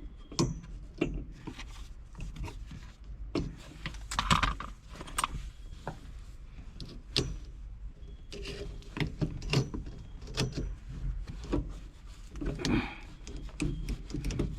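Hand tools and small metal parts clinking, tapping and scraping in irregular clicks and knocks, while the shift rod coupler is worked loose in the Beetle's central tunnel.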